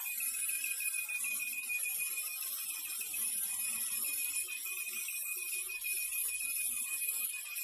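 Steady high-pitched cricket-like chirping from a 2015 Daihatsu Ayla 1.0, a single shrill tone with a fine rapid flutter over the car's running noise. The owner traced it to the clutch adjustment, which he cured by loosening it until the chirp went away.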